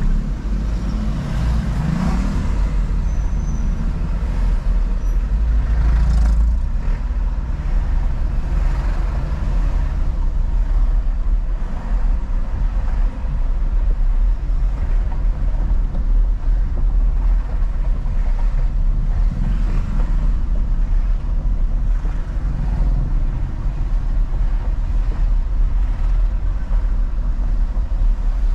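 Road and traffic noise heard from a moving car: a steady low rumble from the vehicle with other traffic around it.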